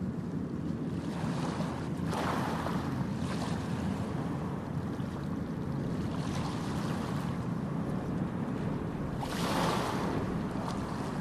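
Steady low rumble of the passenger ship KM Labobar's engines as it gets under way, mixed with wind buffeting the microphone. Two louder hissing surges come about two seconds in and again near the end.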